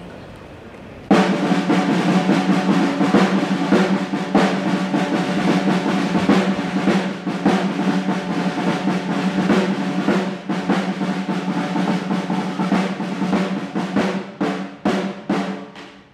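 Ensemble of large barrel drums starting suddenly about a second in with a loud, fast roll of many drums played together. Near the end the roll breaks up into separate strokes that grow quieter.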